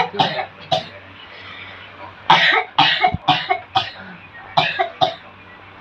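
A patient coughing in fits: three coughs in the first second, then a run of about seven more from a little after two seconds in. It is a persistent cough that a chest X-ray did not explain, and the healer blames it on a jinn disturbance that makes the throat feel tied.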